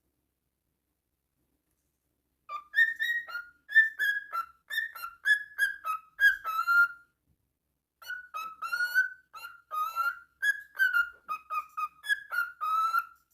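A parrot whistling a tune in short clear notes, about three a second, in two phrases with a pause of about a second between them.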